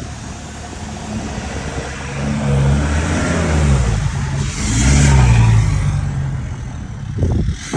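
Ford Ranger 3.2 five-cylinder turbodiesel with a straight-through exhaust accelerating hard as the truck pulls away, its note climbing twice, the second surge the loudest, then dropping off.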